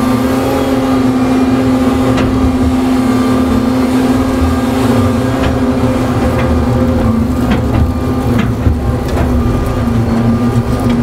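Gradall G3WD telescoping-boom excavator running steadily under load with a strong, even hum, as it digs a bucket of dirt and dumps it into a steel dump-truck bed. A scatter of knocks and clatters, mostly from about five seconds in, as dirt and rocks drop into the bed.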